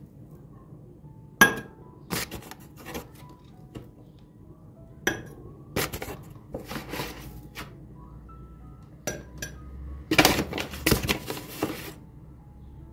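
Kitchen containers and utensils knocking and clinking in separate bursts, with a busier run of clatter near the end, over soft background music.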